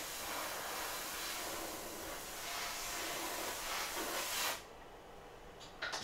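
A steady hiss of rushing air cuts off suddenly about four and a half seconds in. Two light clicks follow near the end.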